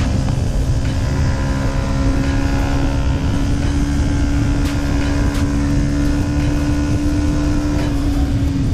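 Yamaha MT-125's single-cylinder engine through an Arrow exhaust, held at steady revs while riding, its note lifting slightly about two seconds in and easing back near the end, over heavy wind rumble.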